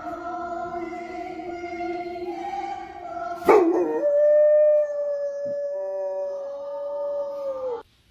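A dog howling along with choir singing from a television. In the second half there is one long, steady held note, and the sound cuts off abruptly shortly before the end.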